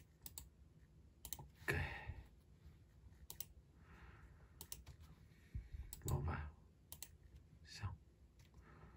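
Computer mouse and keyboard clicks: scattered single clicks, with two louder short noises about two and six seconds in.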